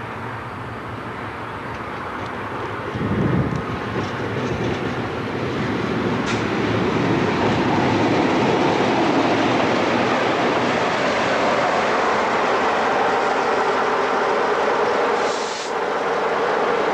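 British Rail Class 47 diesel-electric locomotive running in on its Sulzer twelve-cylinder engine, growing louder as it nears and passes close by, with its wheels rattling over the pointwork.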